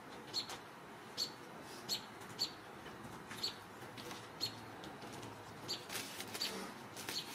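A small bird chirping outside, short sharp chirps repeated about once or twice a second over a faint steady hiss.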